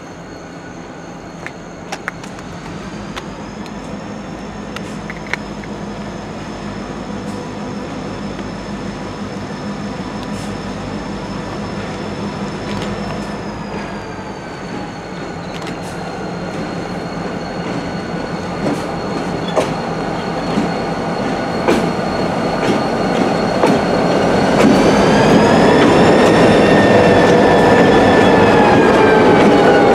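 Diesel freight locomotives approaching and passing: engine drone with a steady whine that rises in pitch, growing louder throughout. Near the end the lead units go by with wheels clicking over the rail joints and the whine dropping in pitch.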